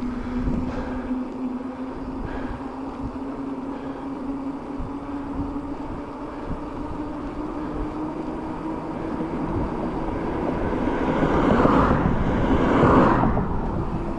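Mountain bike rolling fast down asphalt: wind rushing over the microphone and a steady hum from the knobby tyres that climbs slowly in pitch as speed builds. A louder gust of wind comes about twelve seconds in.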